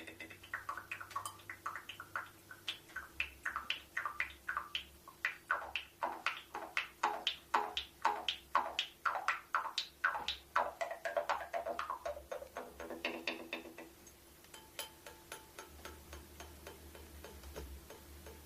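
Traditional Altai music: a steady low drone under a regular run of short, sharp strokes, about two to three a second, which stops near the end.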